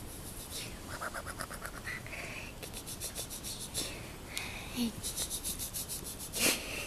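Quick runs of scratching and rubbing on a fleece blanket as puppies' paws scramble about and a hand moves among them, with a louder scuff near the end.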